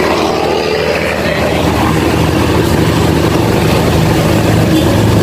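Engine of a small passenger vehicle running steadily while driving, heard from inside its open-sided cab as a constant low drone with road and wind noise.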